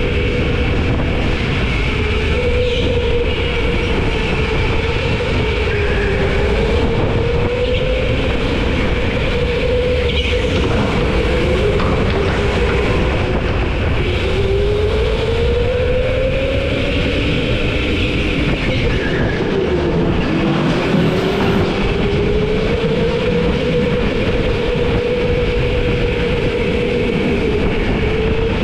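Go-kart engine running at racing speed, its steady drone dipping in pitch several times and climbing back as the kart slows and speeds up again, over a constant rumble.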